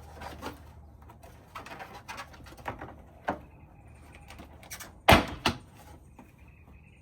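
Plastic trim panel and its clips on a 6th-gen Toyota 4Runner's front end clicking and knocking as the panel is worked loose. The loudest are two sharp knocks about five seconds in.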